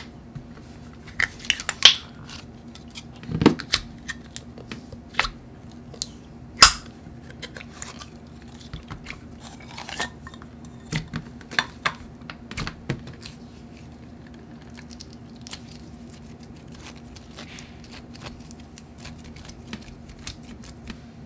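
Thick, creamy slime being pulled out of a plastic jar and worked by hand, giving off irregular sticky clicks and small pops, thickest in the first half. Later come sparser, fainter clicks as it is pressed into a racket-shaped pen frame, over a faint steady low hum.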